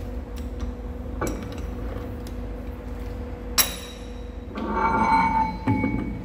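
Metal-on-metal clinks in a machine shop over a steady machine hum: a light click, then a sharp ringing knock about halfway through, then a short stretch of ringing metallic tones.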